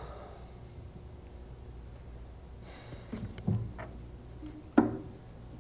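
Knocks and rustles of an acoustic guitar being lifted up and handled over a low room hum, with a sharp knock near the end.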